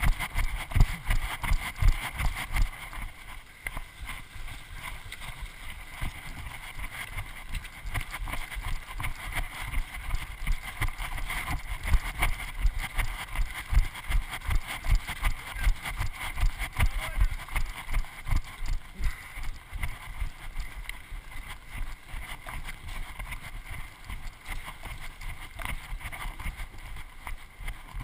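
A runner's footfalls on a dirt trail jolting the camera, regular thuds about three a second, with wind rushing over the microphone.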